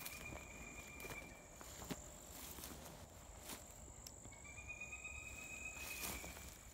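Faint insects trilling in woodland: a thin, high, steady buzz throughout, and a lower trill that stops a little under two seconds in and sounds again for nearly two seconds after about four seconds. Scattered soft ticks and crunches run underneath.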